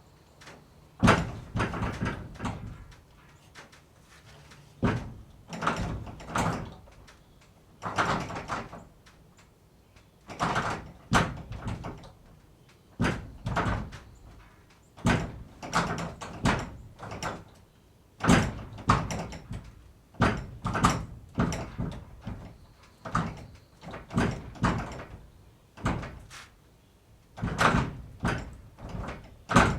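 Barn door being worked over and over: repeated bangs, knocks and rattles in short clusters every second or two.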